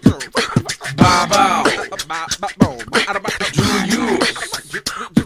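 Intro jingle in a hip-hop style: a voice rhythmically chanting the show's name over beatboxed percussion clicks and thumps.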